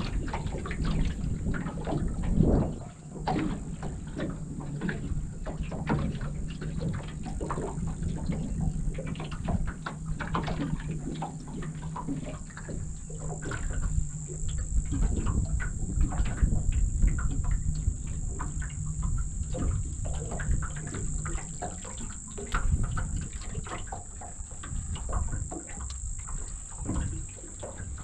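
Wind buffeting the microphone and small waves slapping against the hull of an aluminium dinghy, with irregular knocks and a steady high-pitched insect drone. A low steady hum runs through the middle stretch.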